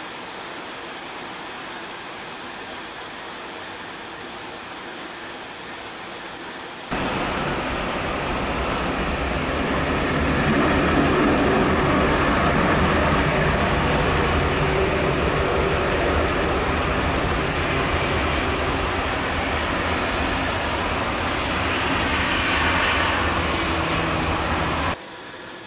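Steady hiss of heavy rain, then a sudden cut to a Garuda Indonesia Boeing 737 on a rain-soaked runway: its jet engines run loud with a deep rumble over the hiss of spray thrown up by its wheels. This cuts off abruptly near the end, back to the rain hiss.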